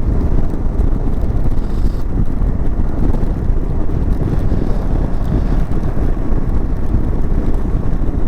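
Wind rushing over the microphone of a motorcycle rider, with a steady low rumble from the moving bike.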